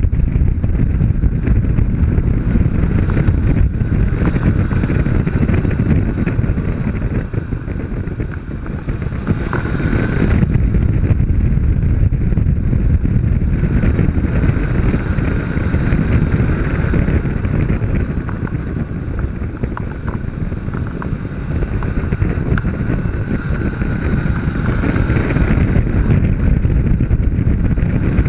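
Honda CB 500 motorcycle riding under power, its engine running beneath heavy wind buffeting on the microphone. The level dips about eight seconds in and builds again from about ten seconds, as the throttle eases and opens.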